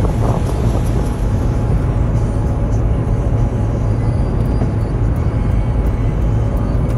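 Steady low rumble of wind buffeting the phone's microphone, with a wash of surf behind it.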